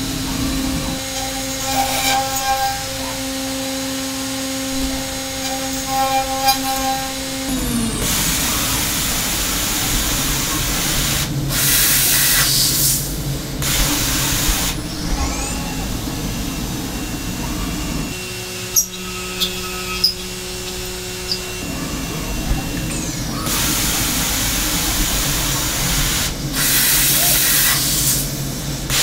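Hermle C400 five-axis CNC machining centre milling 6082 aluminium dry with carbide end mills. A steady spindle whine with several pitches runs for the first seven or so seconds. Then come long stretches of loud hissing cutting noise, a lower steady whine with a few sharp clicks partway through, and more hissing near the end.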